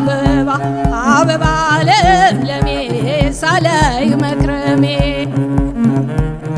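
A woman singing an Ethiopian folk song in a bending, ornamented vocal line over a steady hand-drum beat and sustained notes from a bowed string instrument. The voice drops out about five seconds in while the drum and strings play on.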